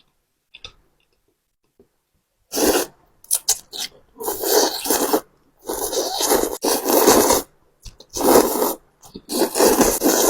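Close-miked mouth sounds of someone eating spicy Samyang noodles: after a near-silent start, about seven noisy bursts, each around a second long with short gaps between them.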